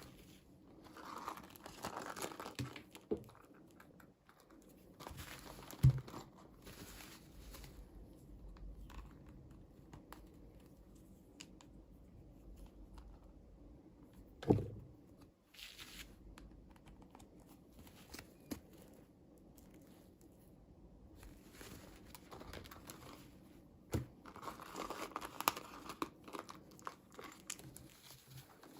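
Packaging crinkling and tearing as it is opened by hand, in several bouts, with two sharp knocks: one about six seconds in and one about halfway through.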